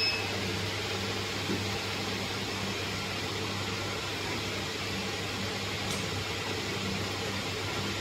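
Steady electrical hum and fan noise from running equipment, likely the cooling fans of an idle fiber laser marking machine and its desktop computer. A short high beep sounds at the very start, and a faint tick comes about six seconds in.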